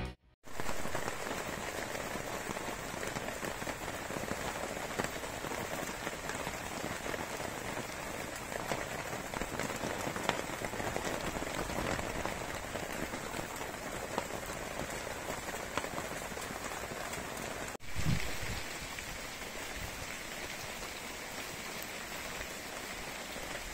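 Steady rain falling on a motorhome and its tarpaulin awning, with single drops ticking now and then. A brief low thump comes about eighteen seconds in.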